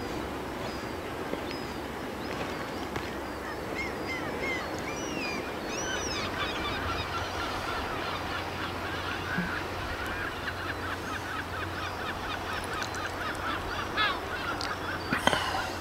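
A flock of birds calling, many short overlapping calls that grow dense and rapid from about six seconds in, over a steady low background rumble. A sharp knock sounds near the end.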